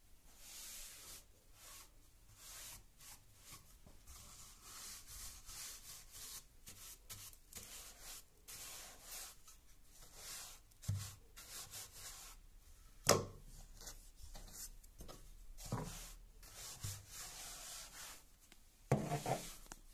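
Paint brush bristles sweeping dust and grit across a wooden stair tread in short repeated strokes, each a soft hiss. A few sharper knocks break in, the loudest about two-thirds of the way through and a quick cluster near the end.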